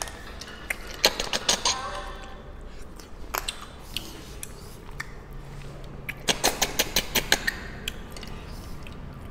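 Snail shells clicking against ceramic bowls and against each other as they are picked out of curry by hand: a cluster of sharp clicks about a second in, and a faster run of about six clicks a second from a little past six seconds.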